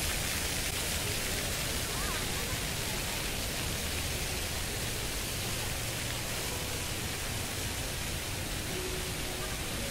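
Floor fountain's many vertical water jets splashing down onto paving: a steady hiss of falling water.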